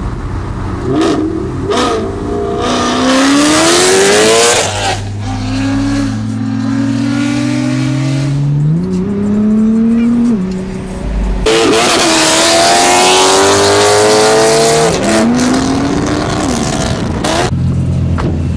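Straight-piped Lexus RC F's V8 accelerating hard, heard from inside the car: the engine note climbs in several rising pulls, dropping back at each upshift, then settles to a low steady rumble near the end.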